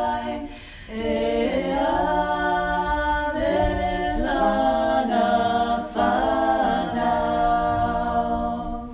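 A cappella vocal music: several unaccompanied voices sing held chords in harmony. There is a short break about half a second in, and the singing ends near the end.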